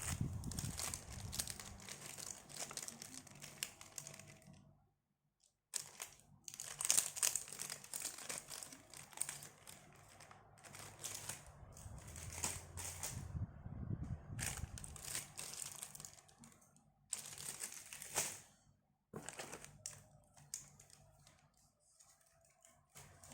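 Packaging being crinkled and torn open by hand during an unboxing, in irregular rustling bursts with two brief pauses.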